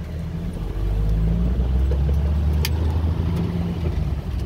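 Jeep engine running as it drives along a rough dirt track, heard from inside the open-topped vehicle: a steady low rumble that gets louder about a second in, with one sharp click about halfway through.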